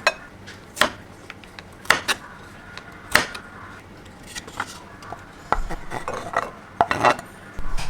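Kitchen utensils and dishes clinking and knocking: about a dozen sharp, irregular strikes of metal and crockery while cooking.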